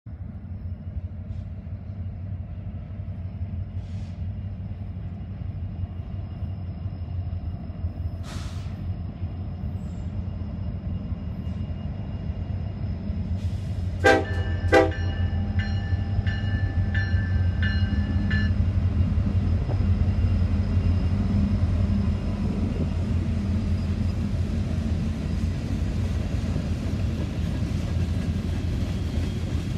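Norfolk Southern diesel freight locomotives rumbling steadily as they draw near and pass, growing slowly louder, with two short horn toots about halfway through. Empty coal hopper cars then roll by behind them.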